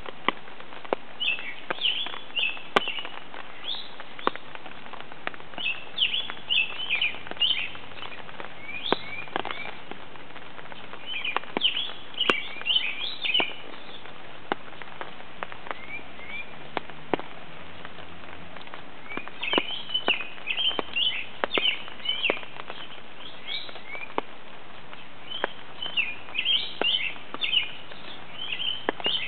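Songbirds singing in bouts of quick, high chirping notes a few seconds apart, while raindrops tap on an umbrella in scattered sharp clicks over a steady hiss of rain.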